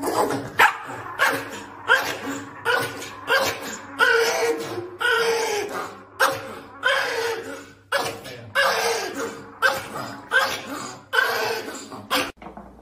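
Pomeranian barking in a steady, regular run of short barks, about three every two seconds, stopping just before the end.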